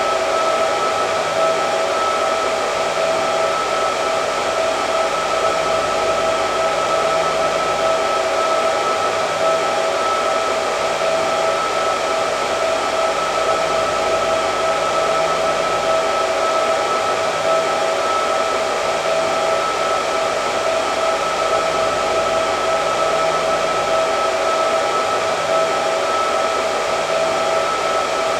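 Hair dryer running continuously, an even rushing of air with a steady high whine.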